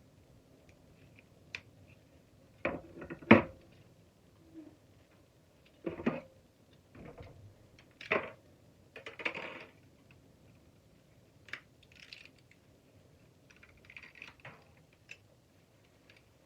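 Irregular metal clanks, clinks and knocks as the parts of a shop vac motor are handled with hand tools while it is taken apart for scrap. A pair of knocks about three seconds in is the loudest. Smaller clatters follow around six, eight and nine seconds, and light ticks come later.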